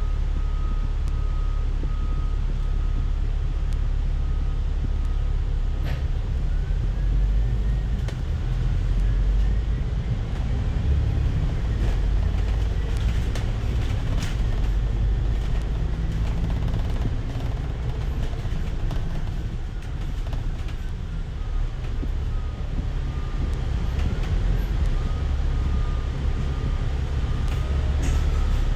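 Moving bus heard from inside: steady low engine and road rumble, with a faint whine that rises and falls in pitch as the bus speeds up and slows, and a few sharp clicks and knocks.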